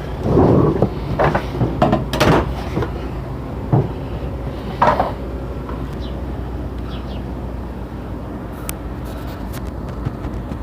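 Slow-moving maintenance-of-way train of loaded gondolas: a steady low rumble, broken by several separate clunks and knocks, most of them in the first five seconds.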